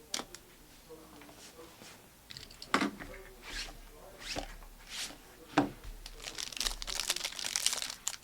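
Plastic trading-card packaging being torn and crinkled, a few separate tears and crackles at first, then a dense run of crinkling near the end.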